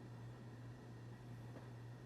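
Radio receiver with no programme on air: a steady low hum under a faint even hiss.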